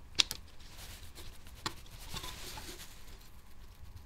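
Small metal handling sounds as a back box saver nut is slid over the screw lug of a galvanised steel back box: light scraping with a sharp click just after the start and another at under two seconds in.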